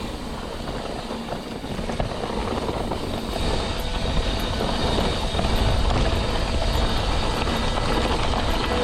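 Wind rushing over the microphone and tyres rumbling over the dirt and rock as a mountain bike descends fast, getting louder about three seconds in.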